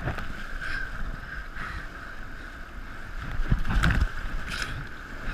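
Whitewater rapids rushing and splashing over the bow of an inflatable kayak, recorded right at the boat. A louder burst of splashing comes about three and a half seconds in.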